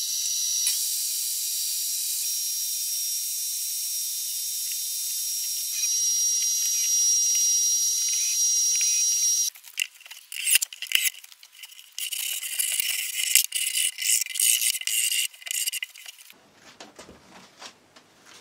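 Benchtop table saw running with a steady high whine while it rips the tongue off a heat-treated sauna panel board, louder for a few seconds as the blade cuts, then stopping abruptly about halfway through. After that, wooden panel boards knock and clatter as they are handled and fitted.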